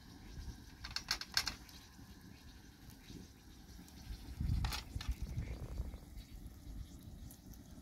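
Metal kebab skewers clinking against each other and the metal tray as raw lamb is threaded onto them: a quick run of light clicks about a second in and another click about halfway through, over a low rumble.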